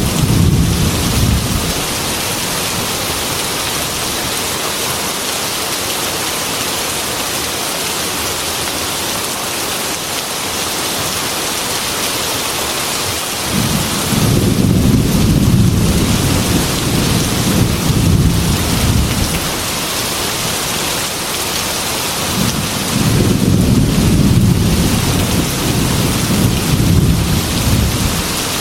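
Heavy rain beating steadily on a glass window, with thunder rumbling in twice: one long rumble about halfway through and another a few seconds before the end.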